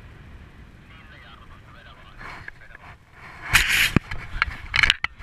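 Paraglider landing on snow: after a few quieter seconds, loud irregular rustling and scraping bursts begin about three and a half seconds in as the pilot touches down and the wing fabric and harness come down.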